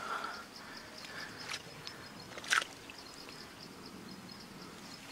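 Quiet riverside ambience with a steady, pulsing high-pitched chirping of insects or birds. A few brief rustles sound through it, one louder about halfway through, as the angler handles the line among the reeds.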